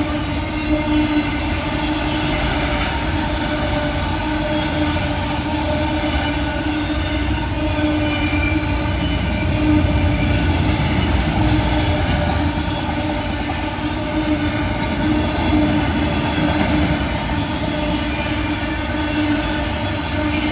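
BNSF freight train of auto carrier railcars rolling past at speed: a steady rumble of steel wheels on rail with a sustained droning tone, and brief faint high squeals twice.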